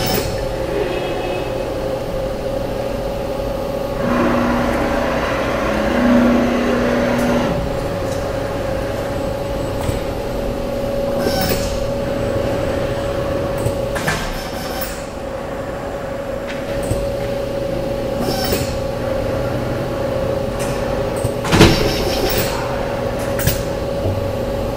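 Air wrench on a Yamaha linear gantry fastening condenser nuts in a robotic assembly cell. It runs for about three seconds, starting a few seconds in, over a steady machine hum. Sharp clicks come now and then, the loudest near the end.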